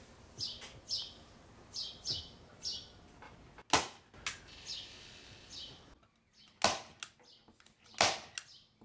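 Manual hand staple gun firing into a wooden board: three sharp snaps, the first nearly four seconds in and two more a little over a second apart near the end. Short high chirps come between them.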